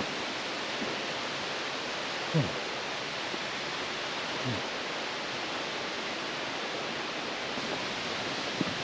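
Steady rushing of a mountain stream. A couple of brief low sounds fall in pitch over it, the louder one about two seconds in.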